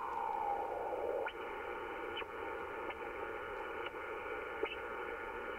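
Receiver audio from an Icom IC-7300 on 40 m lower sideband: steady static hiss with a whistling tone that slides down in pitch and fades about half a second in, then a few faint, brief rising chirps. This is interference from a QJE switching power supply being moved across the receive frequency with the supply's noise offset control.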